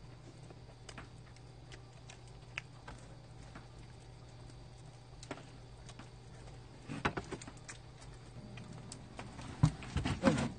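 Charcoal fire crackling with scattered small clicks over a steady low hum. There are bursts of clatter from chopsticks and a rice bowl about seven seconds in and again near the end.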